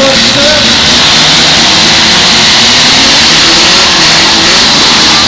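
Several demolition derby cars' engines running and revving together, loud and continuous, their pitch wavering up and down.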